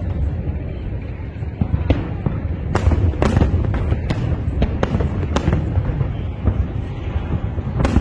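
Aerial firework shells bursting in a rapid, uneven series of sharp bangs over a continuous low rumble, with a cluster of the loudest reports about three seconds in.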